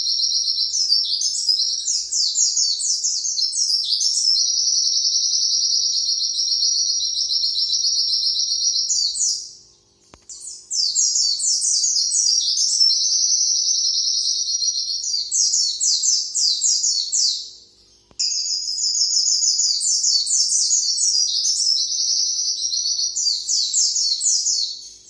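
White-eye (pleci) singing its long, rapid 'nembak' song. Three unbroken, high, fast-trilling phrases of about seven to ten seconds each, split by short pauses.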